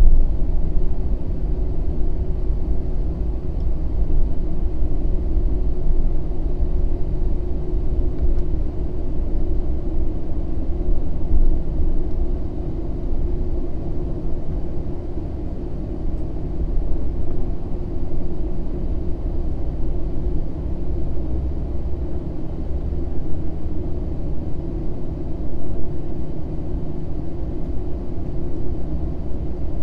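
Inside the cabin of an Airbus A320 near the wing: the jet engines and airframe give a steady low rumble with a constant hum over it as the airliner taxis onto the runway.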